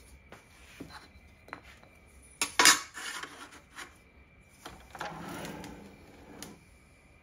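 Aluminum angle stock clanking and scraping as it is handled on a miter saw's metal table and pushed against the fence. A few light clicks come first, then a loud clank with a short clatter about two and a half seconds in, then a scraping rub around five seconds in.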